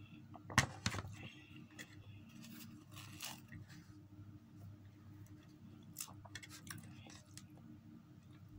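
A ceramic coffee mug set down on a table with two knocks, then Arabic flatbread (khubz) being torn apart, followed by a few small clicks and eating noises at the plate, all over a steady low hum.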